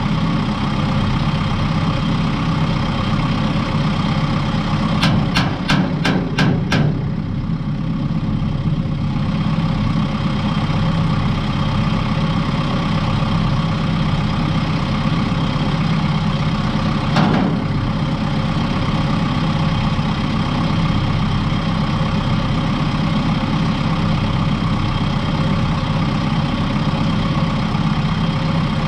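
Kubota M6060 tractor's diesel engine idling steadily. A quick run of five sharp metal knocks comes about five seconds in, and one more knock comes around seventeen seconds.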